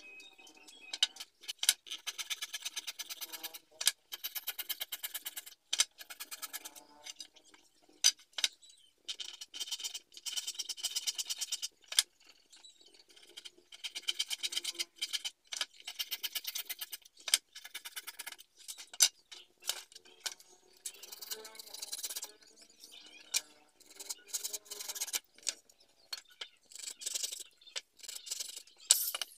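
Handsaw cutting wooden boards in runs of quick back-and-forth strokes lasting a few seconds each, with occasional single sharp knocks between the runs.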